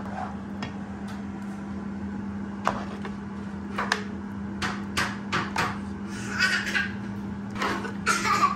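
A metal ladle and spatula knock and scrape against large enamelled cooking pots as a thick coconut-milk stew is stirred. There are several sharp clacks, mostly in the second half, over a steady low hum.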